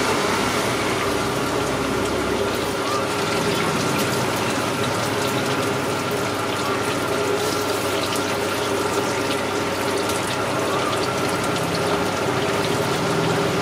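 Marinated chicken leg pieces deep-frying in a large kadai of hot oil: a steady sizzle and bubbling, sprinkled with fine crackles.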